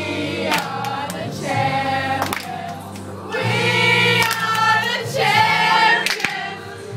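Music with a group of voices singing long held notes over a steady backing.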